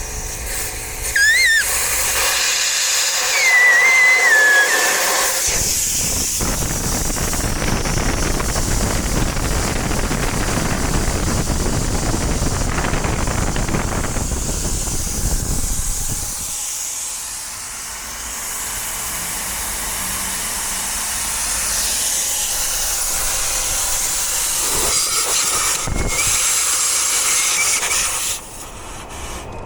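Compressed air rushing out of a motorhome tyre's valve stem with the valve core removed: a loud, steady hiss, with a few brief whistling squeals in the first few seconds. It dies away near the end.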